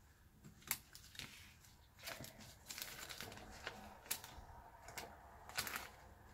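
Trading cards and the binder's clear plastic pocket pages being handled: faint scattered clicks and light plastic rustling as cards are slid into the sleeves and the pages are pressed and shifted.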